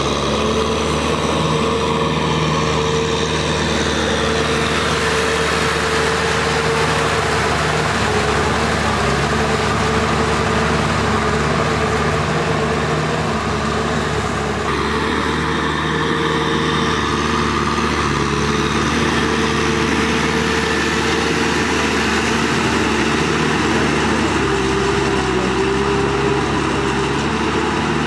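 Kubota tractor's diesel engine running steadily as it drags a harrow through a flooded rice paddy, a constant droning hum. Its tone shifts a little about halfway through.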